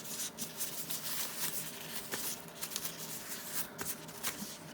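Packaging being handled and opened by hand: a steady run of rustling, small clicks and scrapes.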